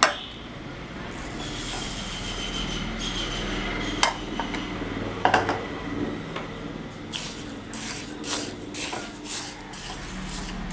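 Moong dal and raw rice being dry-roasted and stirred in a kadai: grains rustling and scraping against the pan, with several sharp knocks of a utensil on the pan, clustered in the last few seconds.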